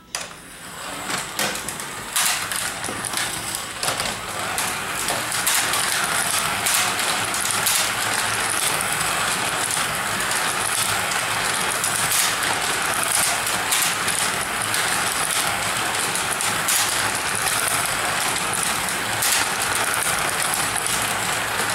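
Several Carrera Digital slot cars lapping a plastic track: a steady high whir of the small electric motors and rattle of the cars in the slots, with scattered clicks. It builds up over the first two seconds as the cars get going, then holds steady.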